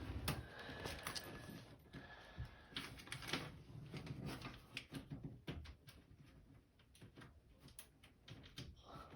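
Faint, irregular clicks and light taps of a small screw and tools being handled during hand work on a washing machine's motor assembly.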